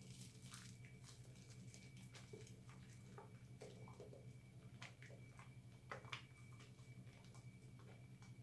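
Faint wet squishing and crackling of thick recycled-soap lather being worked between hands, with scattered soft clicks and a stronger pair about six seconds in. A steady low hum runs underneath.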